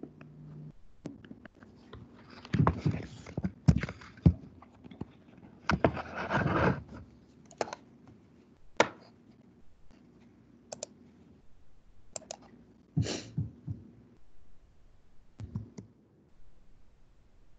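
A stylus tapping and scratching on a tablet screen during handwriting, with short scratchy strokes in the first half. Later come scattered sharp single clicks of a computer mouse and keyboard.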